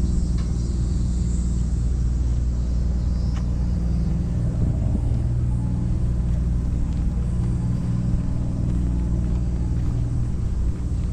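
Steady low rumble with a constant machine hum underneath, and a few faint clicks.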